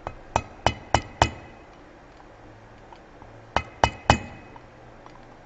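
Sharp metal-on-metal blows struck on a screwdriver used as a punch against the new bushing in a Chrysler 42RLE transmission's front pump housing, staking it to form stops that hold the bushing in place. Five quick blows about a third of a second apart, then after a pause three more, each with a short ring.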